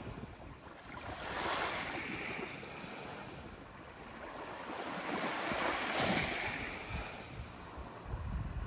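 Small waves washing up onto a sandy beach, swelling twice about four seconds apart, with a low wind rumble on the microphone near the end.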